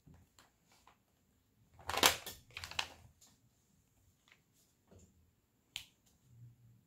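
Small sharp taps and clicks of resin diamond-painting drills being picked up and pressed onto the adhesive canvas with a drill pen. A louder rattling, scraping cluster lasts about a second, around two seconds in.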